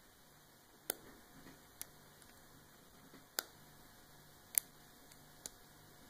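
Miniature DIP switches being flipped, five sharp clicks at uneven intervals.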